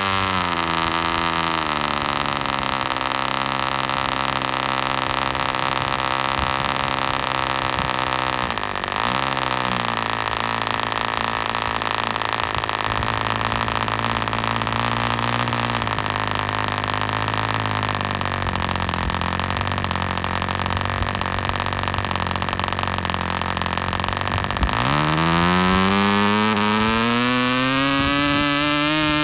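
PAW 1.00 cc twin ball-raced model diesel engine swinging a 7x4 nylon propeller during bench running-in. It is throttled back to a low idle over the first couple of seconds and idles steadily, with a brief dip in speed about nine seconds in. Near the end it is opened up again and the pitch climbs fast.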